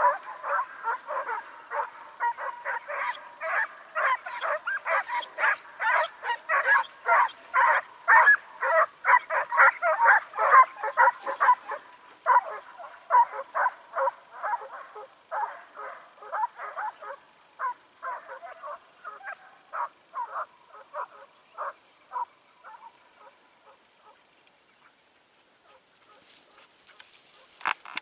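Segugio Italiano hound giving tongue on a hare's trail: a rapid run of yelping bays, about three a second. They are loudest in the first half and thin out and fade into the distance over the second half.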